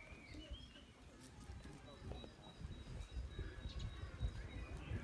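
Faint bird chirps and short whistles, with a thin high whistle held for about two seconds midway, over a low rumble.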